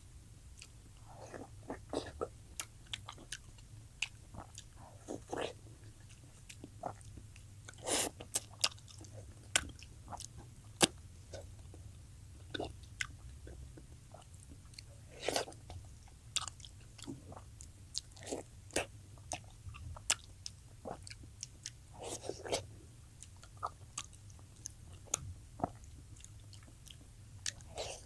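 Close-up mouth sounds of a person chewing and biting food, with irregular wet smacks and clicks, over a steady low hum.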